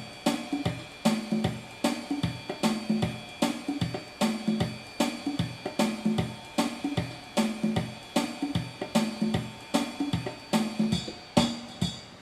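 Yamaha PSR-350 electronic keyboard playing its built-in swing accompaniment style: a steady drum-kit pattern of hi-hat, cymbal, snare and bass drum, with low bass notes on the beats.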